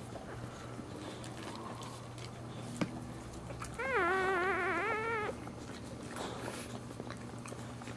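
A dog's whining cry: one wavering, high-pitched call about a second and a half long, near the middle, over a low steady hum.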